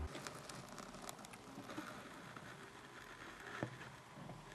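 Faint blizzard ambience: a steady hiss with scattered soft ticks.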